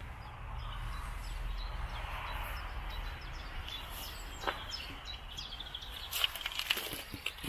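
Birds chirping over a steady outdoor hiss, with a sharp click about halfway through and a cluster of clicks near the end.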